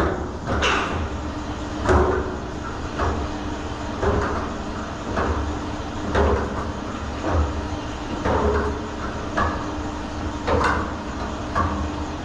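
Tea-rolling machine running, with a regular clunk about once a second over a steady motor hum, while its pressure cap is being released.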